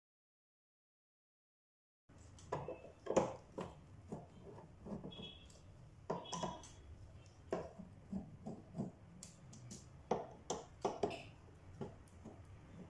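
A screwdriver working out the screws around the edge of a centrifuge's base plate: scattered short clicks, scrapes and small clinks, starting after about two seconds of silence.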